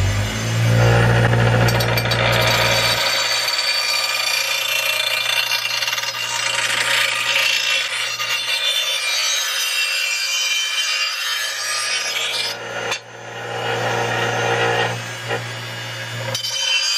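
Clarke Metalworker 6-inch bench grinder running, its grinding wheel sharpening the edge of a steel mower blade under light pressure: a steady motor hum beneath a continuous hissing grind, with a brief break after about thirteen seconds.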